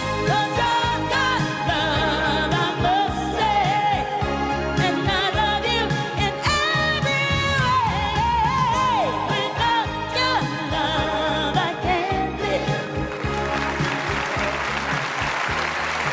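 Live female pop vocal with musical accompaniment: long held notes that slide and waver over the song's final bars. About thirteen seconds in the music ends and audience applause swells up.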